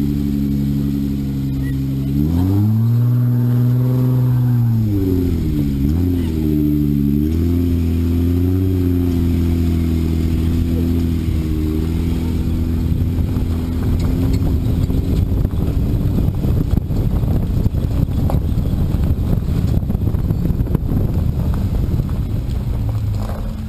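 Jeep Wrangler Unlimited engine revving up and back down as it drives a rough trail, rising once more briefly, then running steadily. In the second half a loud, rough crackling rush of tyres on gravel and wind on the low side-mounted camera takes over.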